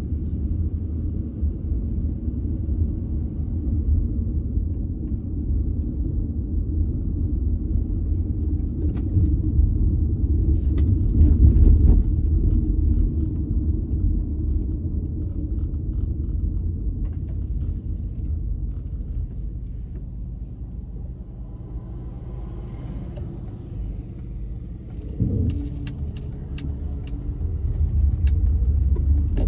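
A car driving, with a steady low rumble of road and engine noise that eases for a while about two-thirds of the way in. A few sharp clicks come near the end.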